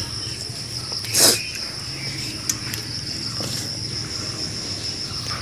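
Insects trilling steadily on one high pitch, with a brief rustling noise about a second in.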